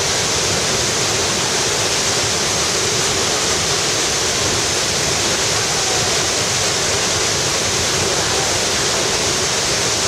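La Fortuna Waterfall plunging into its pool: a loud, steady, unbroken rush of falling water.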